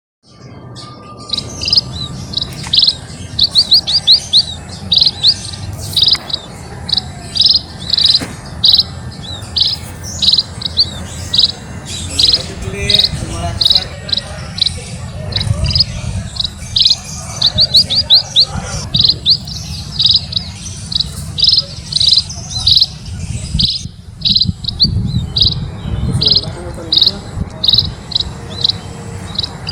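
Emprit (munia) birds chirping: short, high chirps repeated over and over, about one or two a second, with a low rumble underneath.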